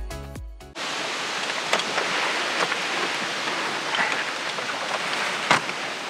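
Background music cuts off under a second in. It gives way to a steady outdoor hiss with a few short clicks as the aluminium ladder of a rooftop tent is handled.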